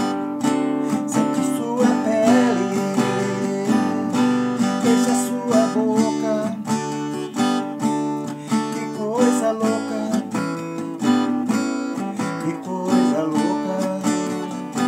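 Acoustic guitar strummed in a steady rhythm, its chords ringing through an instrumental passage.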